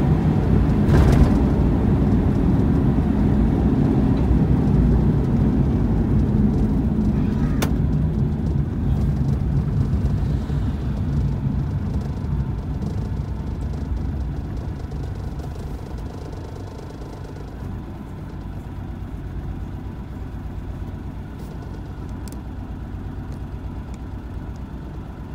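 Car cabin noise from tyres and engine while driving, dying away over several seconds past the middle as the car slows and comes to a stop, leaving a quieter low idle hum.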